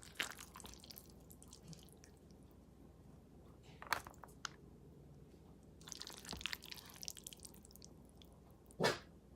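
Faint clinks and taps of a utensil against a dish while baked pasta is served and eaten: a few sharp clicks scattered through, a small cluster past the middle and the loudest one, a brief scrape, near the end.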